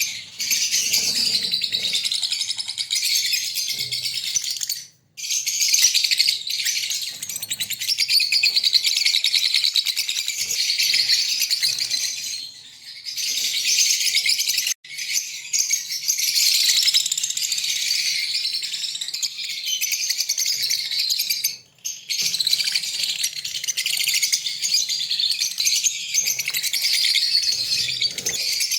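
A breeding pair of green Fischer's lovebirds chattering and chirping in a dense, rapid, high-pitched twitter, broken by a few short pauses.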